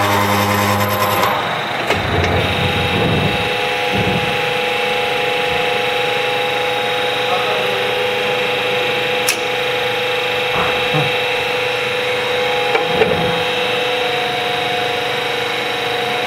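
Woodruff keyway milling machine running with a steady whine. A deeper hum stops about a second in, and a few light knocks and clunks come at intervals.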